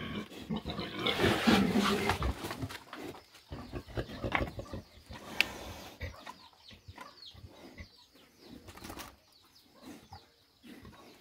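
Pigs grunting and snuffling, loudest in the first two to three seconds, then quieter with scattered knocks and clicks. Small bird chirps come in from about halfway through.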